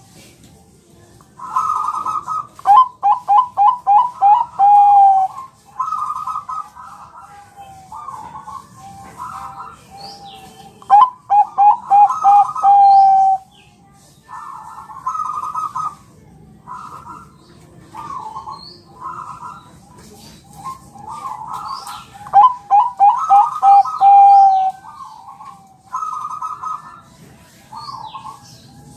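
Bangkok-line zebra dove (perkutut) cooing repeatedly. Three times a full song phrase runs: an opening coo, then a quick string of short notes, ending in a lower held note. Shorter coos come in between. Faint high chirps from smaller birds are heard behind.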